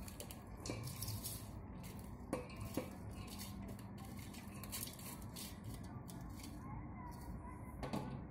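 Stainless-steel bowl clinking and scraping against the rim of a steel pot as chopped potato, onion and green chili are tipped and shaken into gram flour. A few light metallic clinks with brief ringing, the clearest two together about two and a half seconds in and one near the end.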